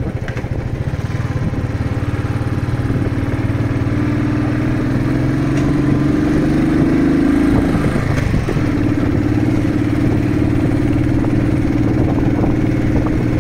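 Royal Enfield motorcycle engine running while riding. Its pitch climbs slowly, breaks off and drops about eight seconds in, then holds steady.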